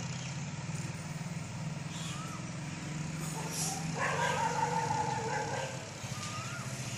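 Steady low hum of a town's traffic, with a drawn-out whine of about two seconds a little past the middle and a couple of short chirps.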